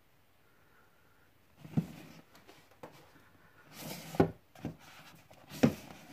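Cardboard film box sets being slid out of and pushed back onto a wooden shelf: a few dull knocks with scraping between them, after a short quiet start.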